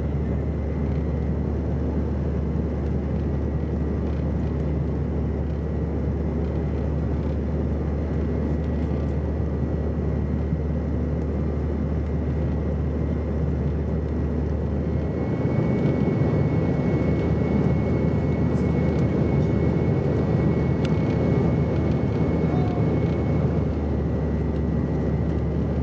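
Steady cabin noise of a Bombardier CRJ700 descending on approach: the drone of its two rear-mounted GE CF34 turbofans and the rush of air past the fuselage. About fifteen seconds in the noise grows louder and a faint high whine comes in, fading out shortly before the end.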